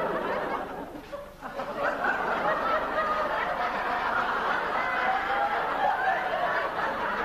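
Audience laughing, many voices together; the laughter dips briefly about a second in, then swells and keeps going.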